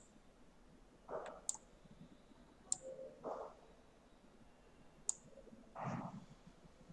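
Faint computer mouse clicks while drawing on screen: about four sharp, separate clicks spread over several seconds, with a few softer, duller sounds in between.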